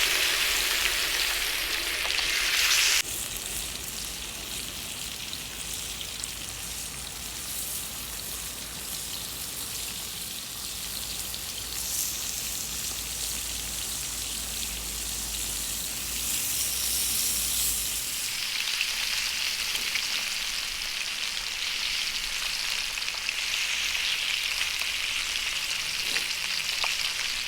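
Thick slices of pork belly sizzling and spitting fat as they sear. The sizzle is loudest for the first three seconds, then drops and swells again in louder spells later on.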